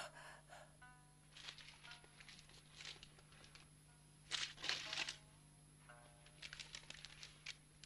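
A sheet of paper being crumpled and rustled in the hands in several short bursts, with a few soft plucked-string notes of background music in between.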